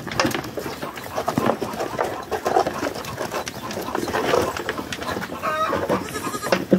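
Goat kids jostling and feeding at a wheelbarrow of hay, with rustling and small knocks throughout and a short goat bleat about five and a half seconds in.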